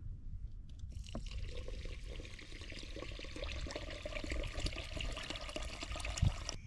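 Water pouring in a steady stream from the spout of a collapsible plastic water carrier into a brass pot of rice, starting about a second in, with a soft thump near the end.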